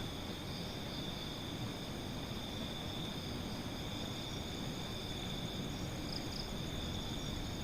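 Night insects trilling steadily, a constant high-pitched tone over a low, even background hiss and rumble.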